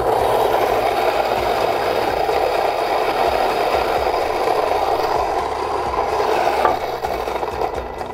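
Fellow Ode electric flat-burr coffee grinder grinding whole coffee beans at a medium-coarse setting, a steady scraping, rasping whir. It stops a little over a second before the end.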